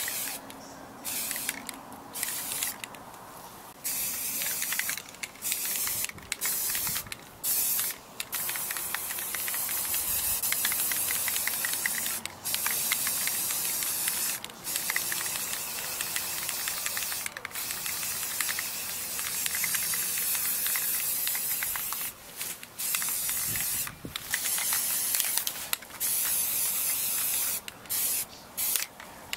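Aerosol can of Rust-Oleum camouflage spray paint hissing out paint in a run of bursts, some under a second and some several seconds long, with short pauses between.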